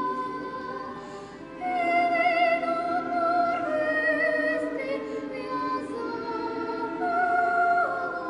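Operatic singing: a high voice holds long notes with vibrato over a soft sustained accompaniment, and it grows louder about a second and a half in.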